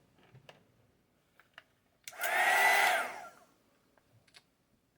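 Electric heat gun switched on for about a second: its fan whirs up to a steady high whine over a rush of blowing air, then winds down as it is switched off. A few faint clicks come before it.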